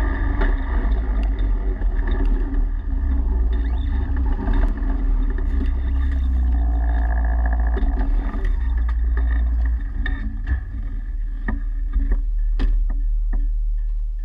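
Small vehicle engine, most likely the ranch's ATV, running steadily as it drives along a dirt road, with a heavy low rumble on the camera mounted to it. After about ten seconds the engine tone thins and a few sharp knocks and clicks come through before it fades near the end.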